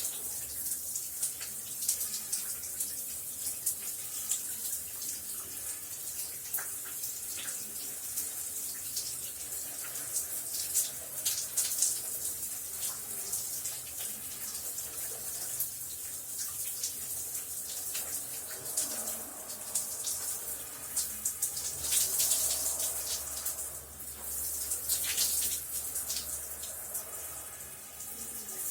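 Shower running: a steady hiss of spraying water with irregular splashes and spatters, swelling briefly a little past three-quarters of the way through.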